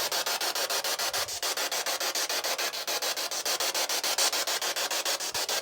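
Spirit box (ghost-hunting radio scanner) sweeping through stations: a steady hiss of static broken into rapid, evenly spaced chops many times a second. It catches no station, a sign of no radio reception in the cellar.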